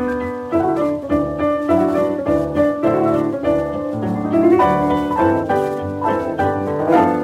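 Piano duet playing a lively popular-song medley with rhythm accompaniment, notes struck in a brisk, steady beat.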